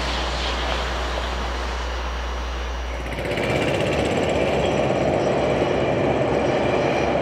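Metrolink commuter train with an EMD F125 diesel-electric locomotive, its 20-cylinder Caterpillar engine giving a steady low drone; about three seconds in the drone gives way to a louder rolling rumble of the train going by.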